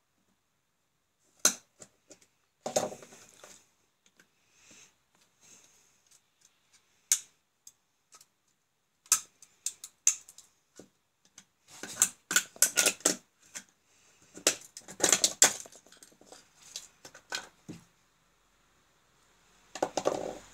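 Plastic housing of a motor protection switch being pried apart with a screwdriver and a knife: scattered sharp clicks, snaps and scrapes of plastic and metal tool tips. The clicks come thick and fast in two short bursts past the middle, and there is a last clatter near the end.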